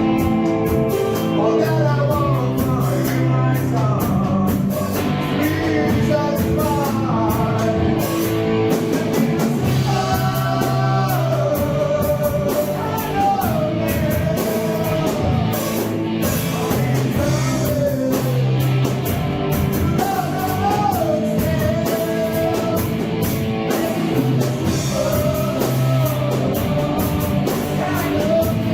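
Rock band playing a slow song: a singer's voice over electric guitar, bass and drums with cymbals.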